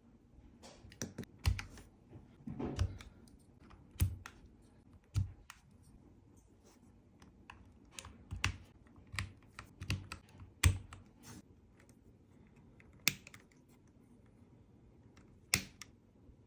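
Keys of a Keychron K8 Pro mechanical keyboard being pressed in scattered, irregular clacks: single keystrokes and short clusters with pauses of a second or two between them.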